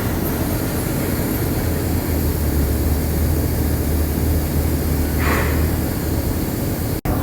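Sawmill machinery at a gang saw running steadily: a continuous deep hum under an even rushing noise. The sound drops out for an instant near the end.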